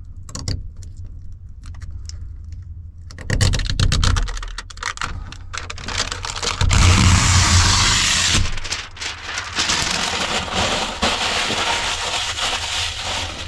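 Dark 5% window tint film being peeled off a truck topper's side window glass: a dense crackling rip that grows loudest about halfway through, with dull bumps underneath.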